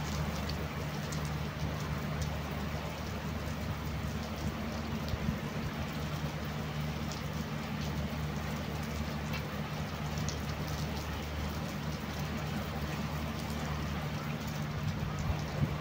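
Heavy rain falling steadily: a dense hiss with many small drop taps, over a steady low hum.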